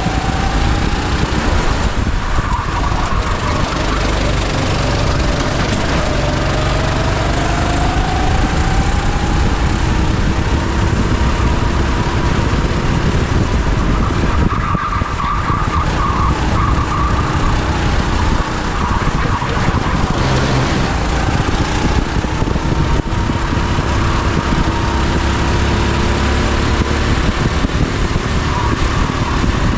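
Go-kart engine heard onboard, its pitch repeatedly rising and falling as it accelerates and backs off, over a steady rushing noise.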